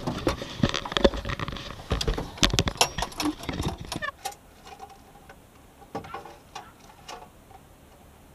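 Quick footsteps and clattering knocks on a wooden dock, with the camera being handled. About four seconds in the sound drops off suddenly to quiet, leaving a few faint clicks and taps as a geocache container and a pen are handled.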